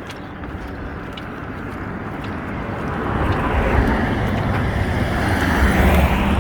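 A road vehicle approaching, its tyre and engine rumble growing steadily louder over several seconds.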